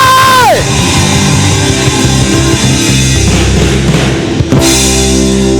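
Loud band music during a worship service, with steady sustained chords and percussion; a long held shouted note ends with a downward slide about half a second in.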